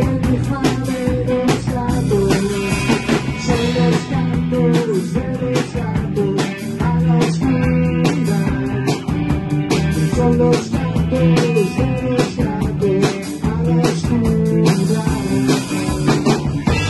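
A rock band playing live in a rehearsal room: a drum kit keeping a steady beat under electric guitars.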